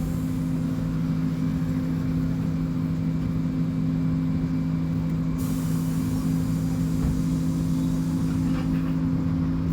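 Scania K270IB bus's diesel engine running at a steady speed, a constant low hum that does not rise or fall. About halfway through, a higher hiss joins it.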